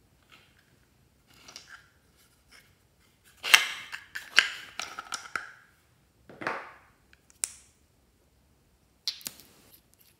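Small glass nail polish bottles being handled: several sharp clicks and clinks of glass and caps, with rustling handling noise in between.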